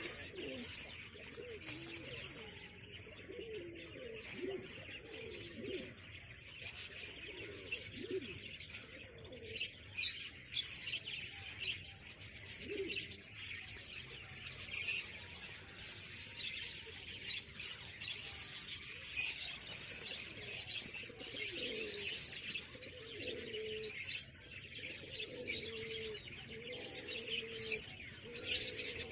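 Fancy pigeons cooing, low repeated coos coming more often near the end, over constant high chirping of small birds.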